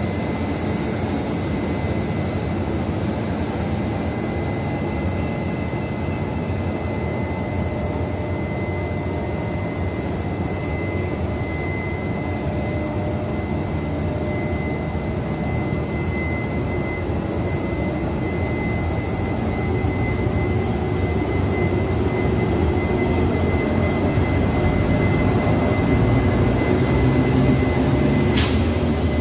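Taiwan Railways E200-series electric locomotive drawing slowly into the platform: a steady whir with a thin high whine, growing louder over the last several seconds as it comes close, and a sharp click near the end.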